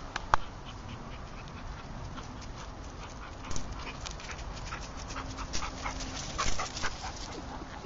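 A dog panting close by, with short crunching steps on a gravel path; the loudest crunches come just after the start and in clusters around the middle and near the end.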